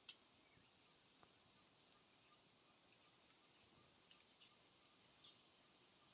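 Near silence: faint forest ambience with short, high chirps in quick runs, and one sharp click at the very start.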